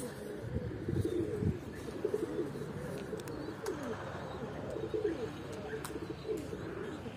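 Domestic pigeons cooing, many calls overlapping into a continuous chorus.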